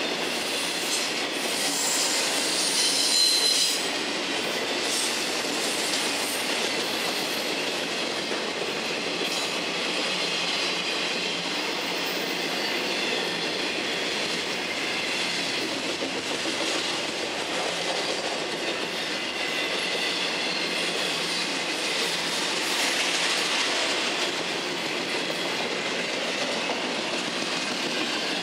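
Florida East Coast Railway intermodal freight train's double-stack container cars and trailer flatcars rolling past, a steady wheel-on-rail noise, with a brief high wheel squeal about three seconds in.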